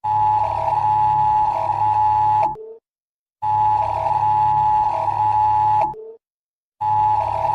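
Electronic warning alert tone: a steady, slightly dissonant pair of tones near 1 kHz over a low hum, sounding for about two and a half seconds, cutting off for under a second, and repeating three times.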